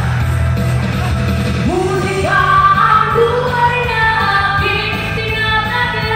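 Live singing into a handheld microphone over a backing music track. The vocal line comes in about a second and a half in, with long held notes over a steady bass.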